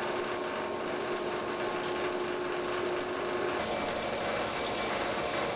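A food-processing machine running steadily with a hum and a few steady tones; the sound changes abruptly about three and a half seconds in, as another machine or stage of the processing takes over.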